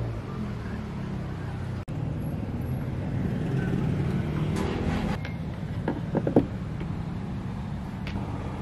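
Street traffic rumbling steadily, with a few short knocks about six seconds in.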